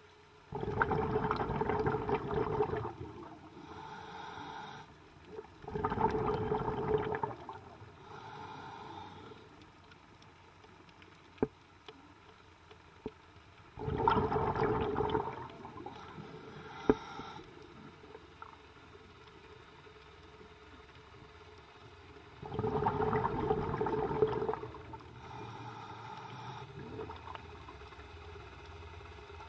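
Scuba diver breathing through a regulator underwater: four loud bubbling exhalations, each about two seconds long and roughly eight seconds apart, with fainter inhalations between them.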